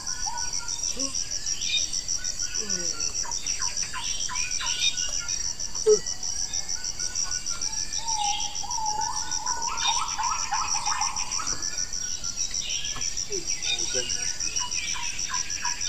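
Forest ambience: a steady, fast-pulsing insect trill, with many short bird chirps and calls over it and a longer run of calls just past the middle.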